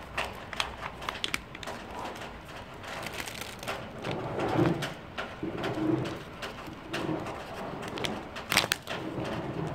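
Pigeon cooing in a series of low, repeated coos starting about four seconds in, with scattered sharp clicks and rustles, the loudest a little before the end.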